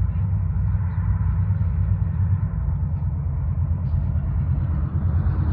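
Low, steady rumble of an approaching freight train's diesel locomotives, still some distance off.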